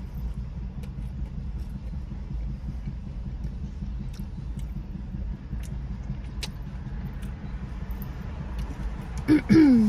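Steady low hum under faint scattered clicks. Near the end comes a short, loud vocal sound from a woman, falling in pitch.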